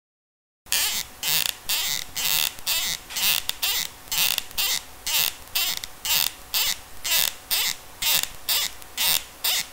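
Cartoon-style squeaky footsteps sound effect: a run of short rubbery squeaks, about two steps a second, starting about half a second in.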